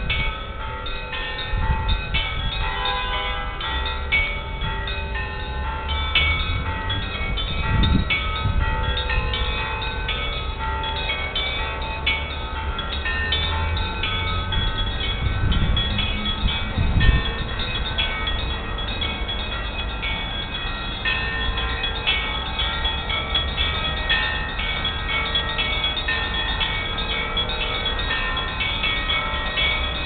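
Russian Orthodox church bells ringing a continuous peal (kolokolny zvon): small bells struck in quick, overlapping succession, each tone ringing on. Under it is a low rumble on the microphone that swells briefly twice.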